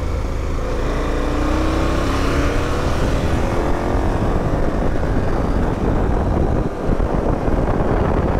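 Motorcycle engine pulling away, its pitch climbing steadily over the first few seconds, mixed with a dense rush of wind noise that then covers it.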